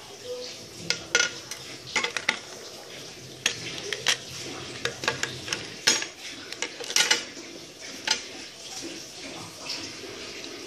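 Irregular clinks and taps as small metal and plastic toy train parts and tools are handled and set down on a newspaper-covered table, about fifteen sharp clicks spread unevenly through the stretch.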